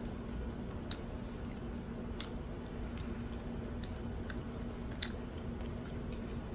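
A person chewing a crunchy fried taco shell with the mouth close to the microphone, with a few sharp crunching clicks scattered through the chewing. A steady low hum sounds underneath.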